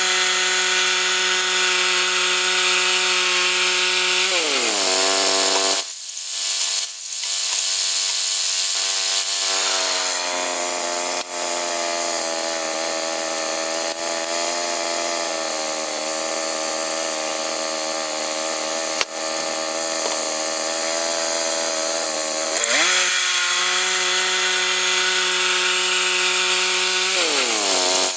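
Gas-engined saw running on pine: the engine holds a high pitch, drops in pitch about five seconds in, runs lower and steady for a long stretch, rises back to the high pitch, then drops again near the end.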